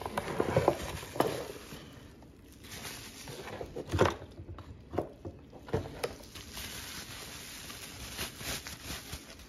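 Unpacking noise: hands rummaging in a cardboard box and drawing out a bubble-wrapped item, with cardboard scraping and plastic wrap crinkling. Several sharp knocks are scattered through it, the strongest about four seconds in.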